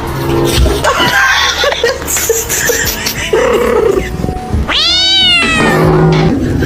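A cat meowing, with one long drawn-out yowl about five seconds in that rises and then falls in pitch, over background music.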